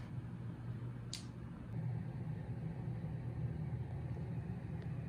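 Steady low hum of room background noise, with one short faint click about a second in.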